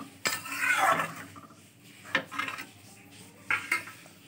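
A metal spoon stirring and scraping in a kadhai of thick chilli paneer gravy. There is a scrape in the first second and about four sharp clinks of the spoon against the pan.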